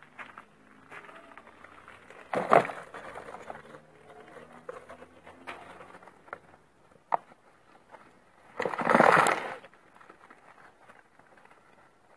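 Hands handling a cardboard box trap among leaves: the cardboard rustles and scrapes. There is a brief loud scuffle about two and a half seconds in and a longer, louder flurry of rustling around nine seconds in, as a hand reaches into the box for the trapped bird.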